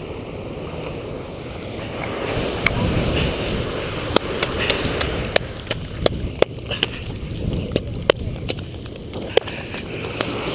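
Surf washing on the beach with wind noise on the microphone. From about two and a half seconds in, a string of sharp, irregular clicks and knocks is heard.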